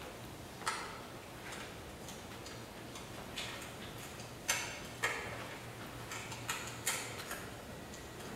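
Sparse, irregular percussive clicks and taps, roughly one a second and bunching closer together near the end, from a contemporary flute-and-percussion piece, over a faint steady low hum.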